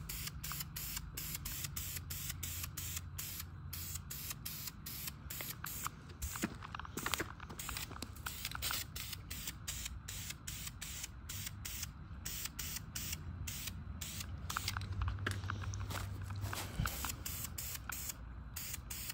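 Aerosol spray paint can hissing in short, quickly repeated squirts, about two or three a second, as black paint is sprayed onto a steel steering spindle.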